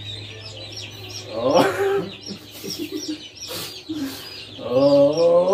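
Chickens calling: short high peeps repeating about three times a second, with a louder call about a second and a half in and a longer rising call near the end.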